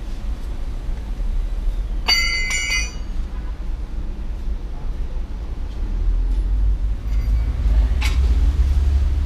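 A metal piece clinking and ringing briefly about two seconds in, with a fainter click near the end, over a steady low rumble that grows louder in the second half.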